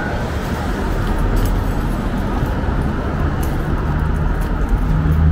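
Downtown street traffic: a steady wash of passing cars' engines and tyres, with a low engine hum building near the end.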